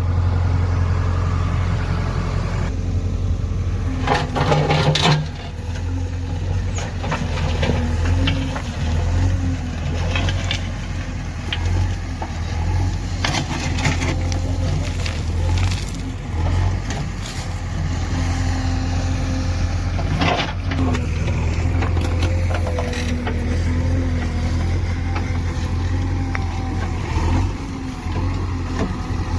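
JCB 3DX backhoe loader's diesel engine running steadily, with a few sharp metal clanks from the machine's working gear.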